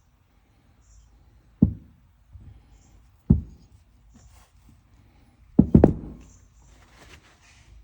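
Sharp knocks of brake caliper parts and tools handled on a workbench: four knocks, the last two close together, then a short rustle near the end.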